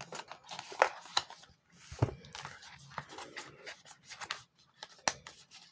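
Handling of a phone's cardboard box and packaging during unboxing: scattered sharp taps and clicks with rustling of paper and packaging.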